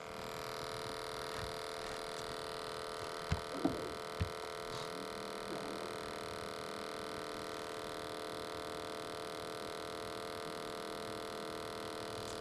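A steady hum of many level tones, broken by a few short knocks between about three and four and a half seconds in.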